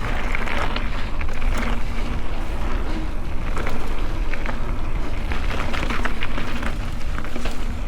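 Mountain bike riding down a dirt trail: tyres rolling over dirt and rock, with frequent short rattles and clicks from the bike over a steady low rumble of wind on the microphone.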